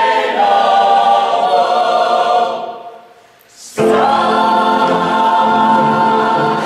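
An ensemble of voices singing long held notes in a musical-theatre number. The singing fades away about two and a half seconds in, then cuts back in sharply about a second later.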